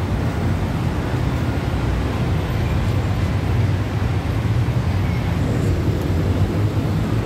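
Steady low rumble of idling passenger minivans and passing traffic, even all through, with no single event standing out.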